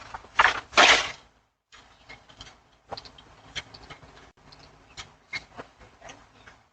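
Two loud bumps or knocks about half a second and a second in, then scattered light clicks and rustling, heard through a doorbell camera's microphone.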